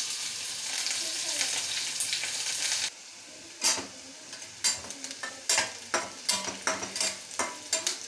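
Chopped onion sizzling loudly in hot tempering oil in a stainless steel kadai. About three seconds in, the sizzle drops abruptly and a spatula stirs the onion, scraping and clicking against the pan about twice a second over a softer sizzle.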